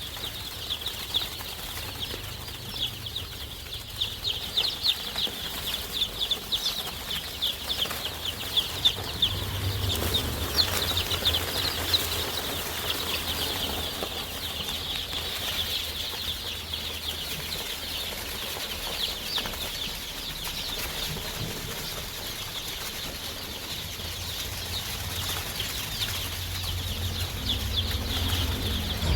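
A flock of Kaveri country chickens chirping and peeping without pause, a dense high-pitched chatter of many overlapping short calls.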